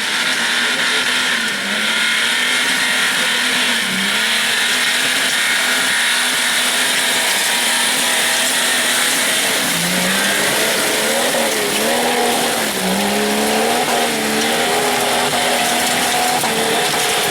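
Off-road 4x4 engine held at high revs on a loose-stone hill climb, its pitch dipping briefly and recovering several times as the load changes, over a constant hiss of tyres churning through loose stone.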